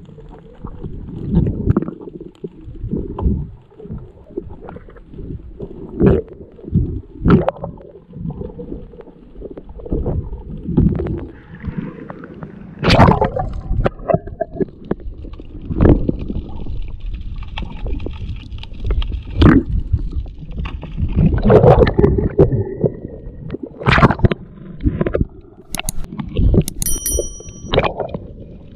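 Underwater sound of water moving around a diver's camera: irregular bursts of gurgling and low rumbling, with a few sharper surges.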